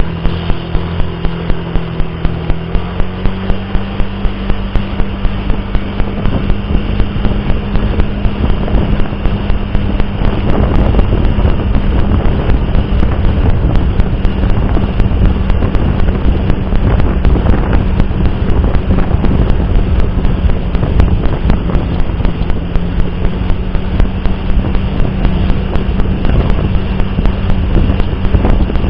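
Faulty replacement microphone of a Philo R5 dashcam producing a loud electrical noise: a regular ticking a few times a second over a steady low hum and a dense hiss, which largely buries the sound of the car driving.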